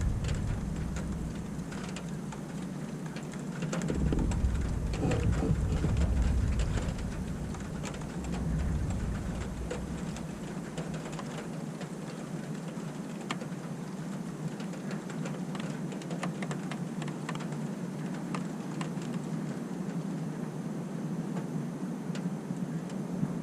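Steady rain falling, with many small drops ticking. A low rumble of thunder swells about four seconds in and fades over the next several seconds.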